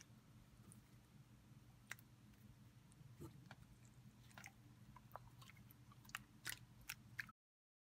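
Faint sticky squishing with small clicks and pops as hands squeeze and stretch soft red homemade slime, a few sharper pops near the end, over a low steady hum. It cuts off suddenly just before the end.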